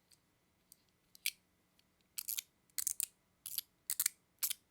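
Metal fidget toy being worked by hand, giving sharp metallic clicks. They come as a few faint ticks, then from about two seconds in a steady series of double clicks, a little under twice a second.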